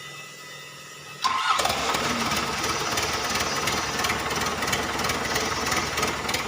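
Starter of a Hitachi ZAXIS 110 excavator's freshly overhauled diesel engine engaging suddenly about a second in, then the engine cranking and firing into a loud, steady run.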